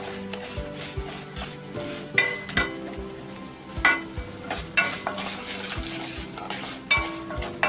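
Oil sizzling in a non-stick kadai as mustard seeds, chana dal, urad dal and dried red chillies fry for a tempering, with a wooden spatula stirring and scraping through them. About five sharp knocks of the spatula against the pan ring out briefly, the clearest a little over two seconds in, near four seconds, near five seconds and near seven seconds.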